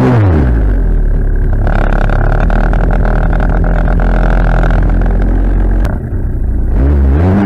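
Small engine revs down to a steady idle, then revs up again near the end.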